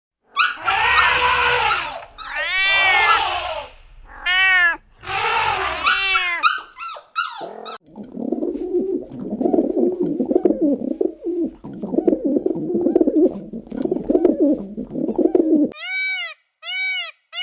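Animal calls in three different voices: loud rising-and-falling calls, then a rougher, lower chattering sound, then short calls repeated about once a second near the end.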